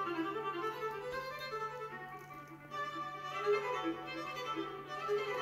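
Background music led by a violin playing a melody, with a brief softer passage about two seconds in.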